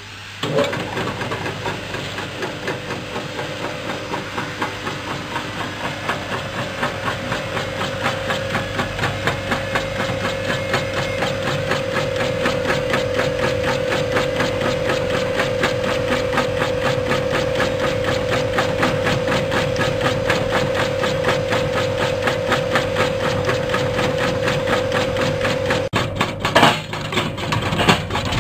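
Chip slicing machine starting up and running while slicing coconut flesh pressed into its hopper: a steady motor-driven hum with a held tone over a fast, even chopping rhythm. A brief knock and dip near the end.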